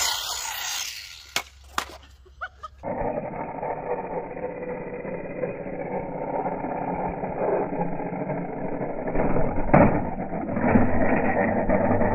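Radio-controlled 1/8 scale trike running over skatepark concrete: steady motor and tyre noise, with a few sharp knocks from its wheels and chassis hitting the ground, loudest about ten seconds in. About three seconds in the sound changes abruptly and turns more muffled, as the footage cuts to another run.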